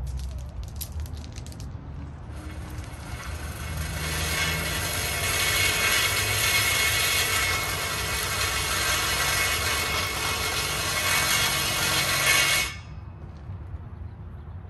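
Cordless power saw cutting through the steel tube frame of a chain-link fence, starting about two seconds in, running steadily for about ten seconds and stopping abruptly. A few light clicks come before it starts.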